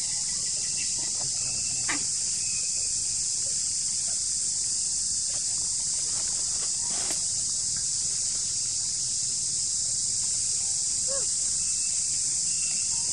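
A dense insect chorus buzzing in one steady, high-pitched drone, with a couple of faint clicks about two and seven seconds in.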